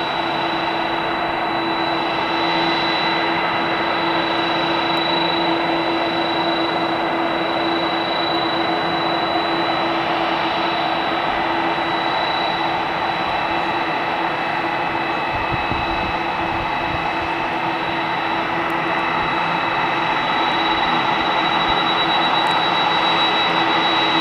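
Boeing 767 freighter's turbofan engines running at taxi power: a steady jet whine with a high tone over a broad rush, growing a little louder near the end as the aircraft turns.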